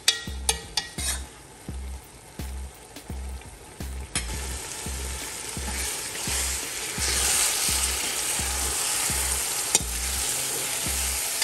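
A metal spoon knocking and scraping against a metal pot while stirring thick vegetable soup, followed by a sizzle that swells from about four seconds in. The soup is frying down and starting to catch on the bottom of the pot, which is the sign that it is ready.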